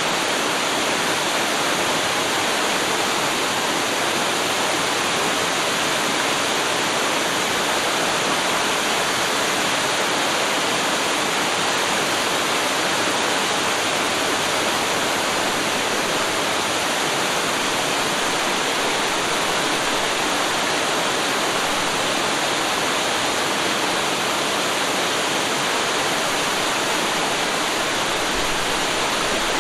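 Waterfall: water pouring steadily in an unbroken, even rush.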